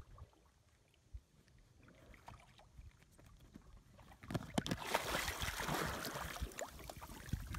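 A dog leaps from an inflatable kayak into lake water about four seconds in, followed by continuous splashing as it paddles. Before the jump it is nearly quiet, with only faint small sounds.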